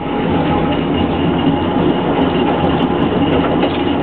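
Narrow-gauge passenger train running along the track: a steady rumble of wheels on rails, with a few faint clicks.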